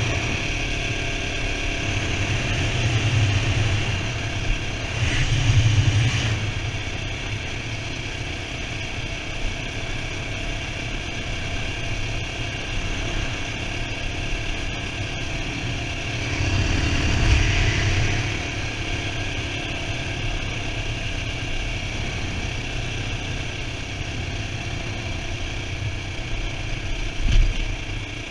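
CSC RX3 Cyclone's 250 cc single-cylinder engine running steadily as the motorcycle rides along, swelling louder twice under throttle.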